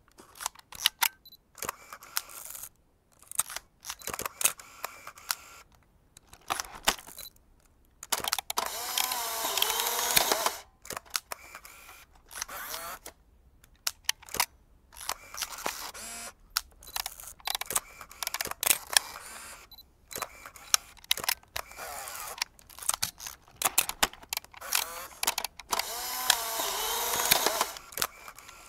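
Vintage camera mechanisms being worked: a series of sharp shutter and lever clicks, with two longer mechanical runs of two to three seconds each, about eight seconds in and again near the end, whose pitch wavers.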